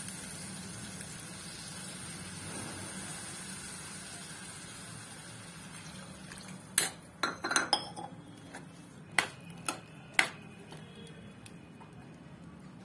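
Water poured into a hot kadhai of cucumber and tomato curry, giving a steady hiss that slowly fades. In the second half a metal spoon stirs the curry and knocks sharply against the pan several times.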